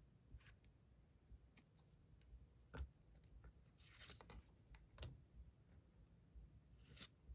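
Faint soft swishes and clicks of Yu-Gi-Oh trading cards being slid off a small stack one at a time by hand, a handful of strokes roughly a second or two apart.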